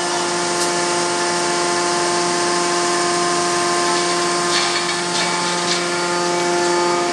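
Steady machine hum of running forging machinery: several held tones over an even noise, with no hammer blows struck.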